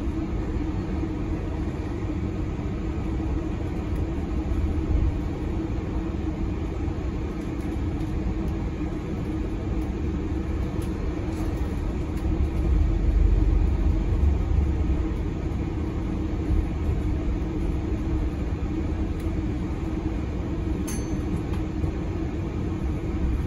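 Bus engine and running gear heard from inside the passenger saloon: a steady low rumble with a constant drone, swelling louder for a few seconds about halfway through.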